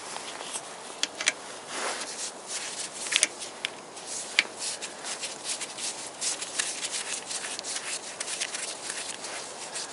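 Socket wrench on a long extension unscrewing a 12 mm bolt that has just broken free on a Toyota VVT-i engine's timing-chain support: irregular metallic clicks over a steady rubbing, scraping noise.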